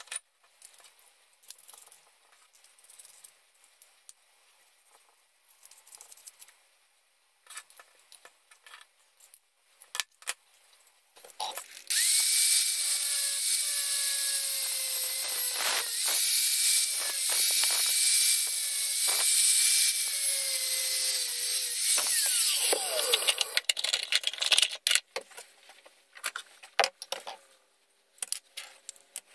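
Hitachi angle grinder with a cutoff disc cutting through the protruding steel bolt ends of a pulley clamped in a vise. It starts about twelve seconds in and runs for about eleven seconds, its whine sagging a few times under load, then spins down. Light clicks of small metal parts being handled come before and after.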